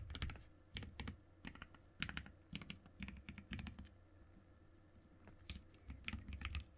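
Typing on a daditto mechanical keyboard with Everglide Aqua King linear switches, damped by a silicone sheet between the PCB and the top plate: runs of quick keystrokes, a pause of about a second and a half past the midpoint, then more typing.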